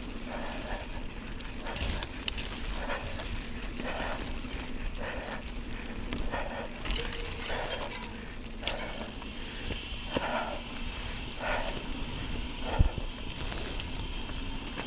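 Mountain bike rolling fast over a rough dirt singletrack: tyres on dirt and fallen leaves, with the bike rattling and clattering over bumps at irregular intervals and a sharp knock near the end.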